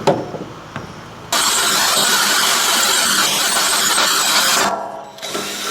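Compressed-air blower hissing in one steady blast of about three and a half seconds, starting and stopping abruptly, used to blow metal chips out of a hole-saw cut in steel tubing. Near the end a drill motor briefly runs with a steady whine.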